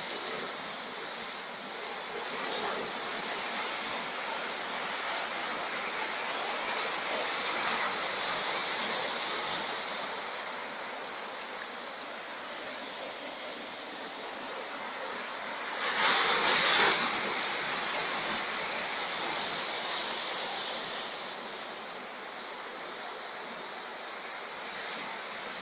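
Hurricane-driven storm surf breaking and washing over a rocky shore: a steady rush of water that swells and eases with each wave, loudest at a big wave crash about sixteen seconds in.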